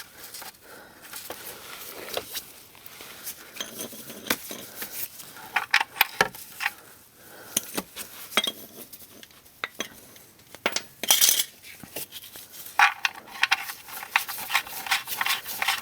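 Metal clinks and clicks from a wrench working the oil drain plug back into a car's oil pan to snug it up, in irregular bursts that are loudest about eleven seconds in.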